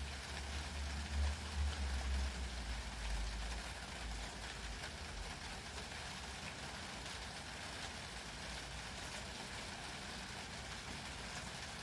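Steady rain pattering, an even hiss throughout, with a low rumble during the first few seconds.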